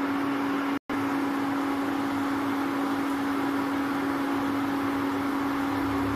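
Puli pitha dumplings sizzling as they shallow-fry in hot oil, over the steady electrical hum of an induction cooktop. The sound cuts out for a split second about a second in.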